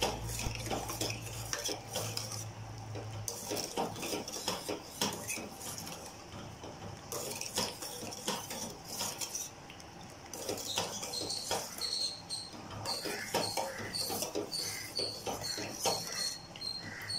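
Steel ladle stirring and scraping around a stainless steel pot of hot agar-agar liquid, with repeated irregular clinks of metal on metal, as the added sugar is stirred in to dissolve.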